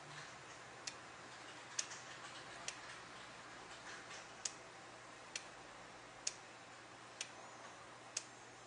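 Faint, sharp ticks at a steady pace, a little under one a second, over a low hiss.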